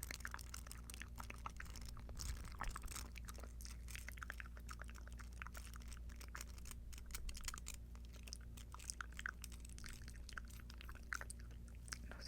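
Earrings handled close to the microphone, giving a dense run of small, irregular clicks and ticks.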